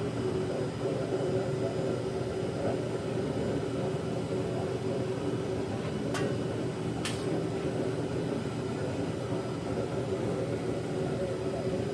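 Metal-melting foundry furnace running steadily, its burner and blower giving a constant low rush with a steady hum, while bronze melts in the crucible. Two sharp clicks come about six and seven seconds in.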